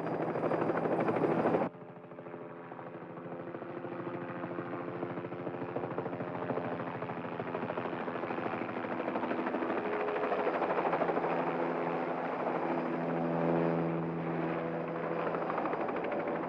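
Helicopter flying: its engine and rotor make a steady droning hum that slowly grows louder. A loud rushing noise at the start cuts off abruptly about a second and a half in.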